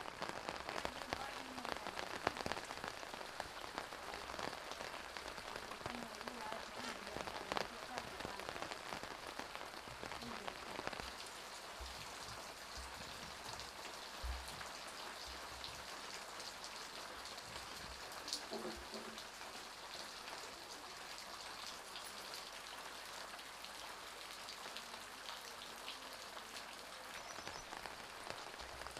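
Steady rain falling, a dense haze of fine drop ticks, a little louder over the first ten seconds or so.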